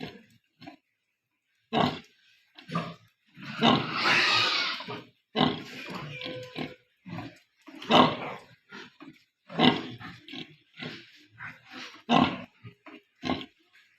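Pigs grunting in short, irregular bursts, with one longer, harsher squeal about four seconds in.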